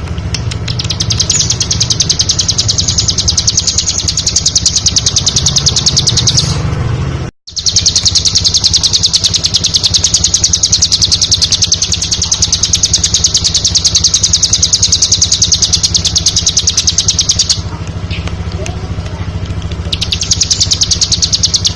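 Bar-winged prinia (ciblek) singing: long runs of fast, rapidly repeated high chirps. The song drops out briefly about seven seconds in and pauses for about two seconds near the end, over a steady low hum.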